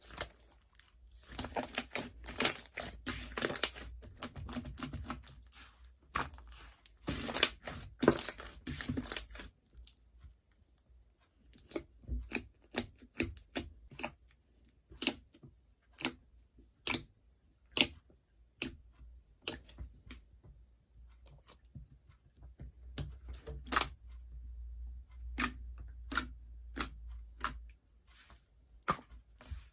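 Slime being worked by hand: a dense run of crackling and popping for several seconds, then separate sharp clicks and pops about once or twice a second.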